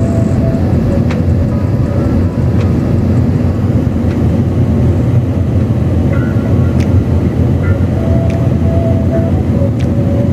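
Steady road and engine noise heard inside a moving car, deep and unbroken, with a few faint ticks.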